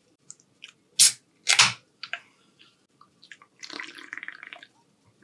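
Drinking from an aluminium drink can close to the microphone: wet sips and swallows near the end. They follow two loud, short sounds about a second in.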